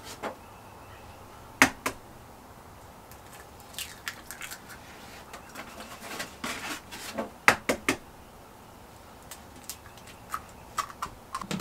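Eggs being cracked against the rim of a stand-mixer bowl and opened into cream cheese batter: a series of short, sharp cracks and taps at irregular intervals, the loudest about two seconds in.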